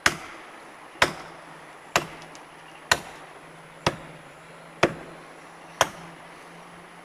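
Axe chopping into the trunk of a large standing tree: seven sharp blows at a steady pace of about one a second, each dying away quickly.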